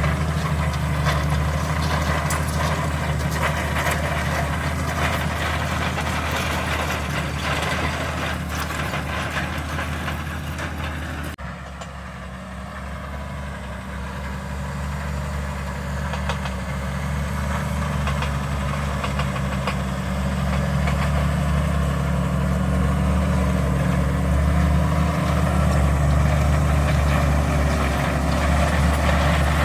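Valtra Q Series tractor engine running steadily while pulling a five-furrow plough. About eleven seconds in, the sound suddenly turns duller and quieter, then slowly builds back up.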